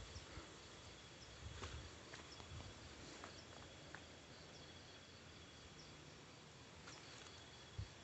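Faint night insect chorus: a steady high-pitched trill with a fainter pulsing call above it, over scattered soft rustles and crackles of movement through undergrowth.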